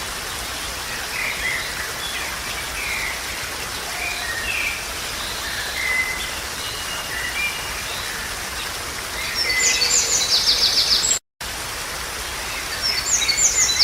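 Birds chirping with scattered short calls over a steady outdoor hiss. A rapid pulsed trill starts near the end, cuts out for an instant, and returns.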